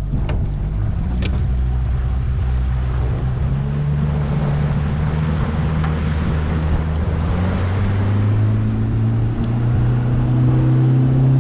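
Outboard motor running steadily as a small boat travels along, its pitch rising a little partway through, with wind and water rushing.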